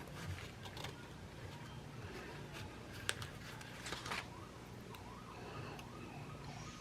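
Faint light clicks of planner stickers and tweezers being handled, about twice, over a low background hum from a television. In the second half a faint wavering tone rises and falls several times a second.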